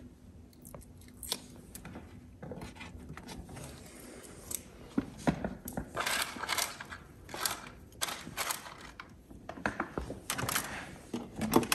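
Hand work at a motorhome's plastic toilet service hatch: scattered clicks, scrapes and rustles of tools, cable and parts being handled, sparse at first and busier in the second half.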